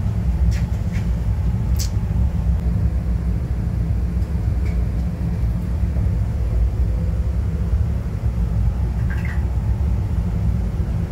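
Steady low machine rumble of a commercial kitchen's background noise, with a few light clicks in the first two seconds and another near the end.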